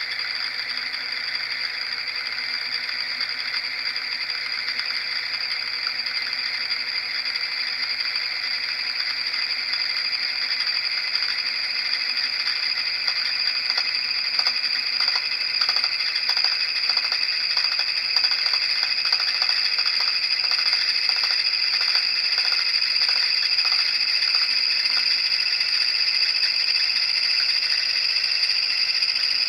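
DIY Euler's disc, a polished tungsten carbide ring with a pressed-in brass weight, spolling on a glass mirror: a steady, high whirring ring that slowly grows louder and rises a little in pitch, the sign of the disc tilting lower late in its spin. A faint rattling flutter runs through the middle.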